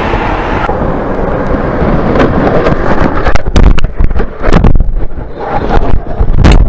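Motorcycle riding with loud wind rush on the rider's camera microphone, then from about three seconds in a rapid run of sharp knocks and clattering impacts as the camera tumbles: the sound of a motorcycle crash.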